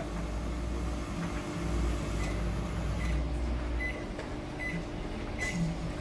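Panasonic microwave oven running with a steady low hum that cuts off about four seconds in as the heating cycle ends, while it gives a series of short, high beeps signalling that the cooking is done.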